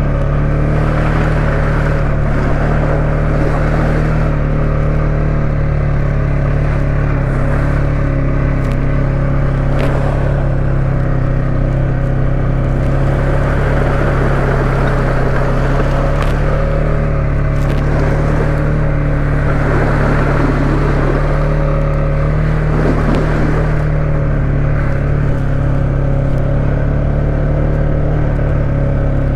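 Four-wheeler ATV engine running at a steady pace on a trail, with tyres swishing through water-filled ruts.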